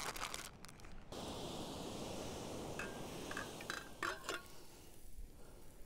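Meat sizzling on a grill over an open wood fire, a steady hiss that eases off after about four seconds, with a few light clinks of dishes around the middle.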